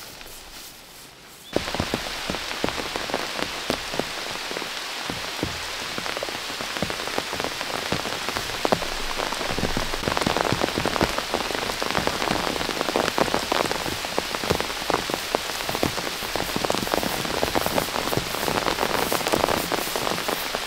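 Heavy rain in a rainstorm, a dense patter with many single drops striking close by. After a quieter first second and a half it comes in abruptly, and it grows slightly louder toward the end.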